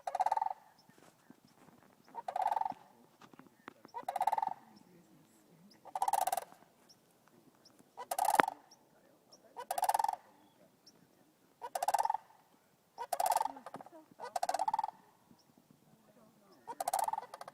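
A crane calling over and over, one short call of about half a second every one and a half to two seconds, each with a rattling, pulsed quality.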